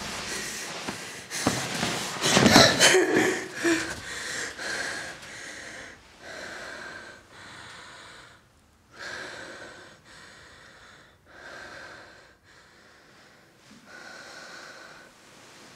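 A young woman gasps as she jolts up in bed, with a rustle of bedsheets, then breathes hard in and out, about one breath every two to three seconds, growing quieter.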